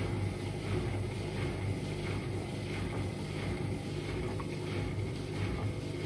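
Indesit IWDD7143 washer dryer running its cotton tumble-dry programme: the drum turning with a steady low hum that swells and dips unevenly.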